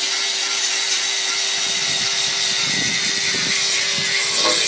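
Electric angle grinder running with a steady whine, its sanding disc grinding paint and filler off a metal motorcycle fuel tank; the scraping grows coarser from about two seconds in as the disc is pressed harder against the tank.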